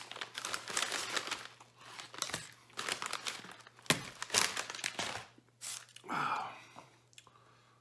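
Paper takeout bag crinkling and rustling as it is handled and rummaged through, in irregular bursts that die away about five seconds in.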